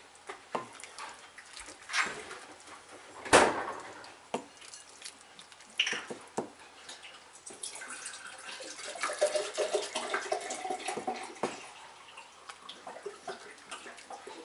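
Borscht being ladled from a pot into a ceramic bowl: soup splashing and dripping, with several sharp clinks and knocks of the ladle and bowl against the pot, the loudest about three seconds in.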